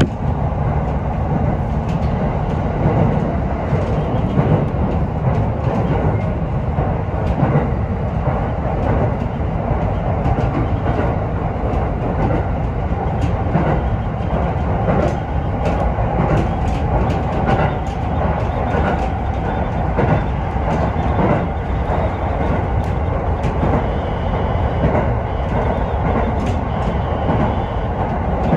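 Sotetsu Izumino Line electric commuter train running at speed, heard from inside the front car: a steady rumble with scattered clicks of the wheels over rail joints, most frequent midway through.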